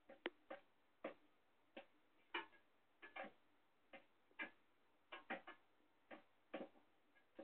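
Jackdaw's beak tapping on the glass globe of a plasma ball: sharp, irregular taps, about two a second, some in quick pairs.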